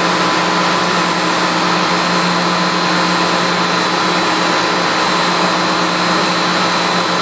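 Steady machinery hum and rush with several constant tones, from boiler-room equipment running. The level holds even, with no taps or clicks standing out.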